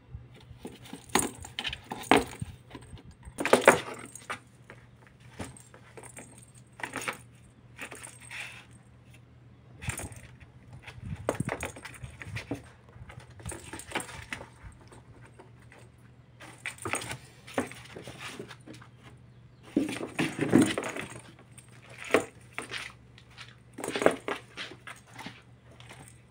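A kitten batting a small plastic toy ball around a cardboard box: irregular bursts of the ball rattling and rolling, with paws and claws scraping the cardboard. The loudest bursts come about three seconds in and again about two-thirds of the way through.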